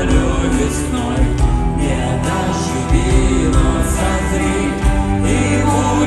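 Rock band playing live through an arena sound system: an instrumental passage with electric guitars, drums and keyboards, the chords held and ringing.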